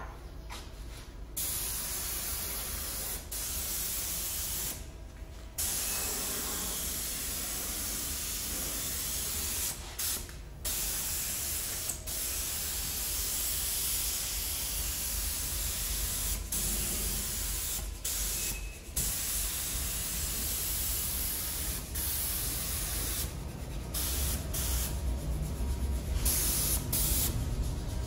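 Compressed-air paint spray gun hissing as paint is sprayed onto a car body, in long stretches broken by several brief pauses.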